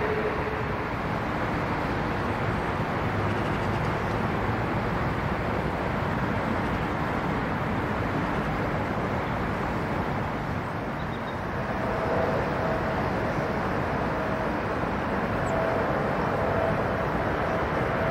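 Jet airliner engine noise: a steady rumble, with an engine whine coming in about two-thirds of the way through as an aircraft approaches on its landing descent.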